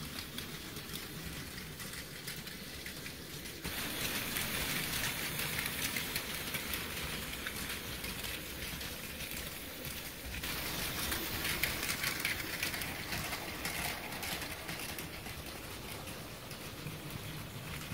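Battery-powered Plarail C56 160 toy locomotive running on plastic track: a steady, rattly whirr of its small motor and gearbox with dense fine clicking. It gets louder about four seconds in, and louder again about ten seconds in, before easing off.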